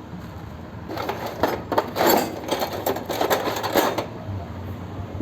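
Metal clinking and rattling as tools and parts are handled on a high-pressure spray pump, a dense clatter from about a second in until about four seconds in.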